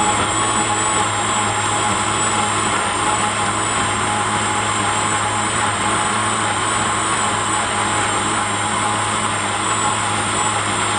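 Personal blender's motor running steadily at full speed, a loud, even whir with a constant low hum, as it purees a thick smoothie of frozen banana, oats, yogurt and milk.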